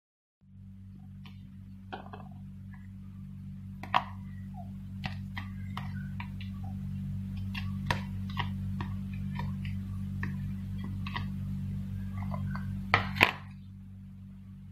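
Metal spoon and crockery clicking and knocking irregularly as boiled potato is handled and mashed in a bowl, over a steady low hum.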